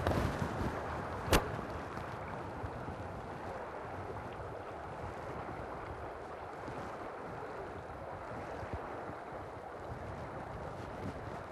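Steady rush of a flowing river, with one sharp click about a second in.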